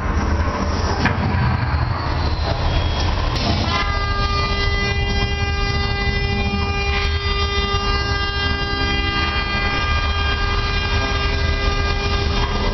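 Ride special-effects show: a deep, constant rumble, joined about four seconds in by a steady blaring horn that holds one pitch to the end.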